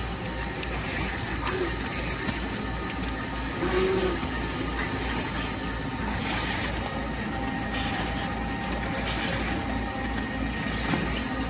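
Wet cat food pouch sorting and orientation machine running: steady mechanical clatter with an even low pulse about three times a second, light clicks, and several short hisses of air.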